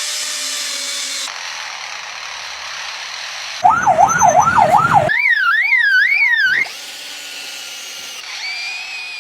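Lyrebird mimicking a car alarm: a hissing passage, then a loud fast-warbling alarm call that jumps higher about five seconds in, followed by more hiss and a gliding whistle near the end.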